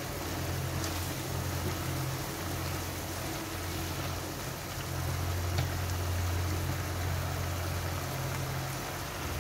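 A pan of ginisang upo (bottle gourd stewed with tomato and shrimp) simmering and bubbling in a wok on a gas burner, with a few faint spatula clicks as it is stirred. A steady low hum runs underneath.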